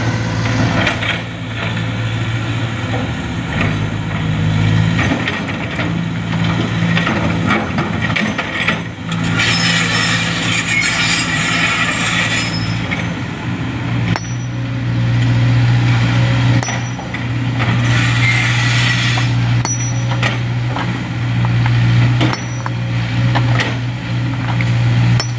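Sumitomo SH210 hydraulic excavator's diesel engine running with a steady low drone as it digs, with two hissing spells of a few seconds each and scattered knocks and clinks of rock.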